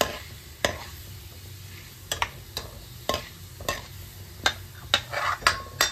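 Cumin and fenugreek seeds sizzling softly in hot mustard oil in a kadhai while being stirred, a utensil clicking and scraping against the pan about ten times at uneven intervals.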